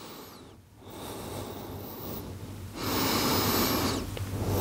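A woman breathing slowly and audibly: a soft breath about a second in, then a louder, hissing breath from about three seconds in.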